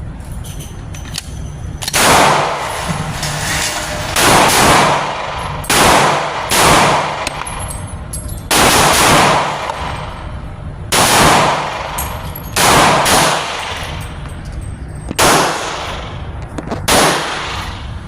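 Glock 22 Gen 2 pistol in .40 S&W firing nine single shots at an irregular pace, roughly one to two and a half seconds apart, each sharp report followed by a long echoing tail.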